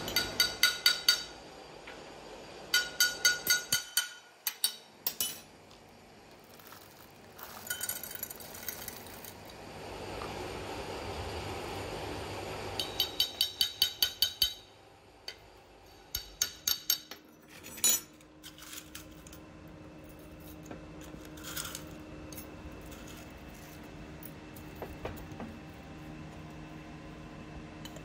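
Small steel parts clinking against each other in quick runs of ringing taps, about half a dozen taps to a second, in several runs that each last about a second.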